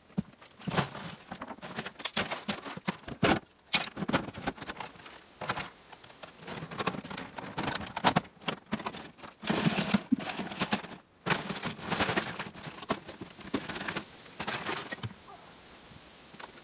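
Irregular clatter and knocks of scrap plastic and small electronics being tossed into plastic storage totes, with the totes themselves being handled; it eases off near the end.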